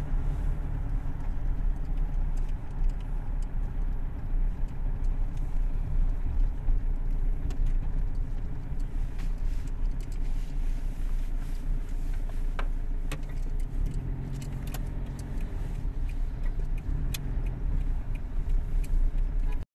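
A car driving, heard from inside: steady low engine and road rumble with scattered light rattling clicks.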